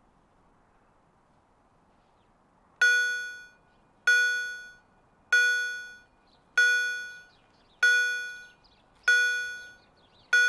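Level crossing warning bell striking at an even pace, about once every second and a quarter, starting about three seconds in; each strike rings out and fades before the next. It is the acoustic warning that the crossing barriers are about to close.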